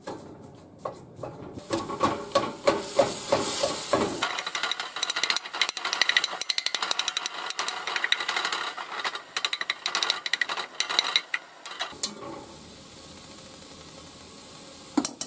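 Slotted plastic spatula tapping and scraping rapidly against a cast iron skillet as raw ground beef is chopped up in it, over the sizzle of the meat starting to brown. The chopping stops about twelve seconds in, leaving the sizzle alone.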